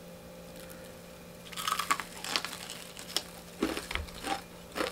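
Crispy fried chicken crunching and crackling close up as it is torn apart with a plastic-gloved hand. A quick run of sharp crackles starts about a second and a half in.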